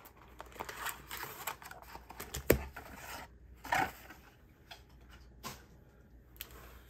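Cardboard planner packaging being handled: scattered light taps, clicks and rustles as a folding cardboard box is opened and a planner slid out onto a wooden table, with a sharper knock about two and a half seconds in.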